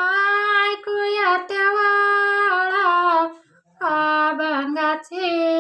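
A solo female voice sings a Marathi abhang unaccompanied in long held, gliding notes. There is a brief pause for breath about three and a half seconds in.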